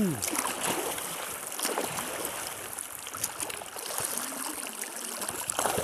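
Water splashing and sloshing as a man lying on a board paddles with both arms, his hands stroking through the water in irregular splashes.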